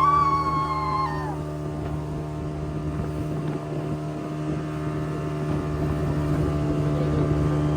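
Speedboat engine running at a steady pitch over a rushing wash of water. A high sliding tone fades out about a second in.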